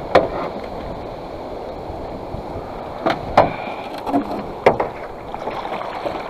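A double-bladed paddle stroking through icy, slushy water beside a small aluminum boat: a steady wash of water, broken by several sharp knocks.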